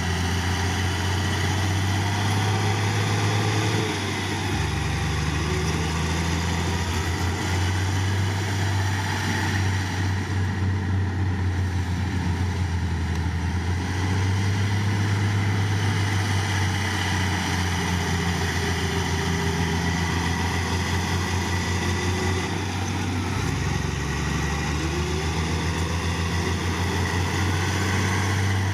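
Heavy diesel engine of earthmoving machinery running steadily, its pitch stepping up and down a few times as the load changes.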